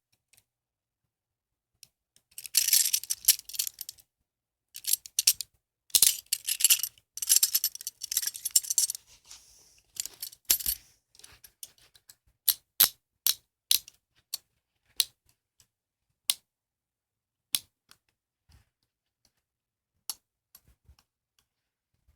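Steel hinged handcuffs being handled: runs of rapid metallic ratchet clicking and rattling as the cuff arms are swung through, then single sharp clicks, with a couple more clicks near the end.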